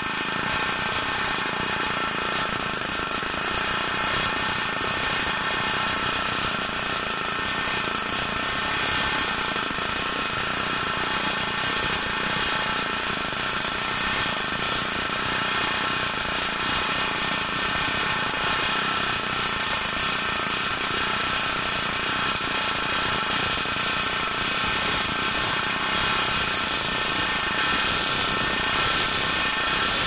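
Boyer No. 1 pneumatic hammer running steadily without a break, rapidly hammering a plain-ended beading tool that folds a boiler tube end down onto the tube plate: the finishing stage of beading over the tube.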